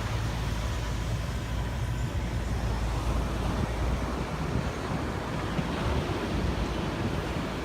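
A digger's engine running steadily while it works sand on the beach, mixed with the wash of surf and wind on the microphone.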